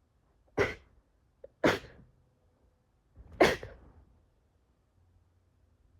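Three sneezes in a row: two about a second apart, then a third after a slightly longer pause, each a short sharp burst.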